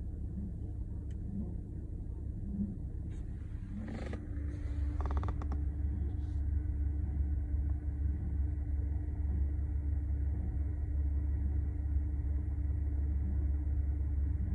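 Audi B8.5 S4's supercharged 3.0-litre V6 idling with a steady low rumble; the idle is rough. About four seconds in, a steady higher hum joins, the engine gets a little louder, and there is a brief cluster of clicks.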